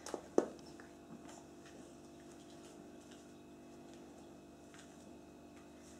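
Two soft knocks in the first half second, then faint scattered taps and rustling: a Pekingese puppy moving about inside her fabric dog house on a linoleum floor.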